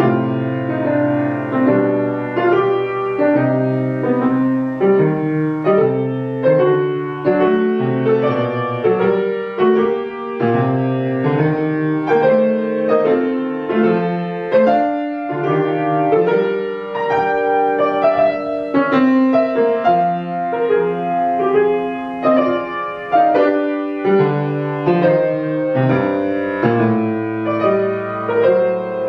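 Solo grand piano playing classical music: chords and moving lines over sustained low bass notes.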